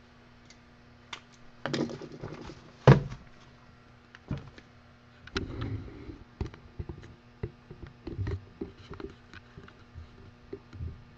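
Handling noise close to the microphone: scattered clicks and knocks with paper rustling as a printed sheet is brought up and held. One loud thump about three seconds in.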